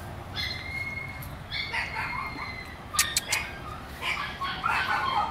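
Two long, high, steady animal calls of about a second each, the second falling slightly, followed by a few sharp clicks about three seconds in and broken, choppy calls near the end.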